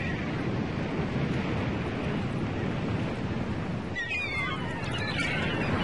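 Steady outdoor rushing noise, like wind or surf, with short wavering high calls, likely birds, starting about four seconds in.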